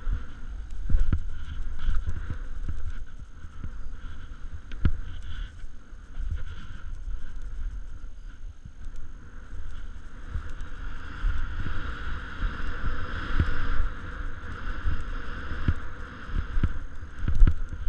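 Wind buffeting the microphone, with the hiss of snow under a rider descending a powder slope and scattered thumps from bumps and turns. The snow hiss swells about eleven seconds in.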